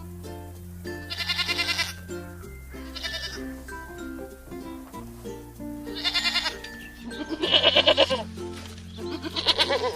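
About five bleats from goats or sheep, each quavering, the loudest near the end, over background music with steady bass notes and a simple melody.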